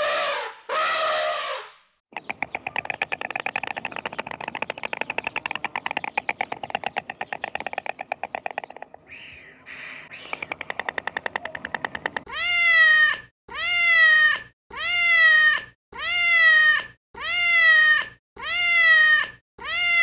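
An animal calling: two short calls, then a rapid pulsing call for several seconds, then a steady series of pitched calls, each falling in pitch, about one every second or so.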